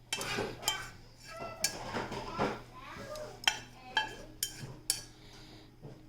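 Utensils clinking and scraping against a bowl or dish, with about half a dozen sharp clinks spread through the few seconds.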